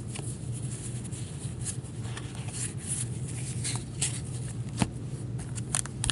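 Hockey trading cards handled and slid against each other by cotton-gloved hands: light scattered clicks and card-on-card rustles, with one sharper snap near the end, over a steady low background hum.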